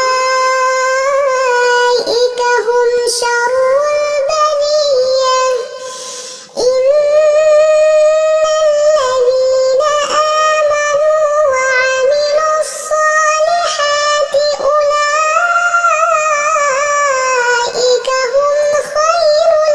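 A high voice chanting Quran recitation (tajweed) in long, held, ornamented notes, with a brief pause for breath about six seconds in.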